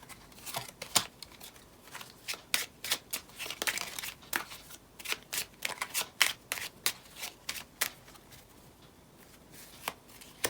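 Tarot cards being shuffled by hand: a quick run of crisp card slaps and flicks that thins out about eight seconds in.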